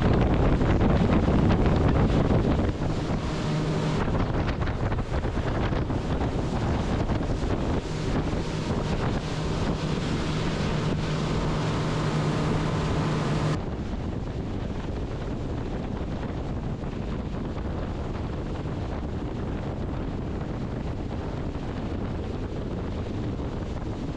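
Wind on the microphone and water rushing past the hull of a fast-running sportfishing charter boat. From about three seconds in, a steady low engine drone runs under the rush. About halfway through, the sound drops abruptly to a quieter, even rush.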